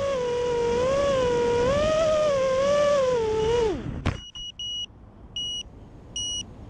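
Small multirotor drone's electric motors whining steadily, the pitch wavering up and down, then winding down and stopping about four seconds in, with a single knock as the drone settles on the ground. Short high electronic beeps follow from the drone: three in quick succession, then about one every three quarters of a second.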